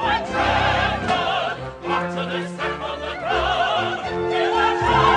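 Operatic singing with a wide vibrato over orchestral accompaniment, from a staged musical number.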